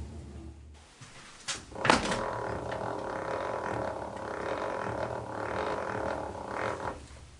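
Milling machine's Z-axis handwheel being cranked: a sharp clunk about two seconds in, then a steady mechanical whirring drone.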